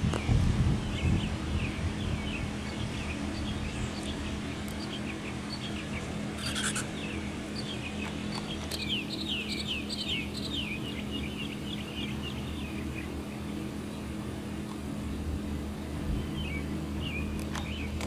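Small birds chirping, many short falling chirps, thickest from about nine to thirteen seconds in, over a steady low hum. There is a low wind rumble in the first second and a brief click about seven seconds in.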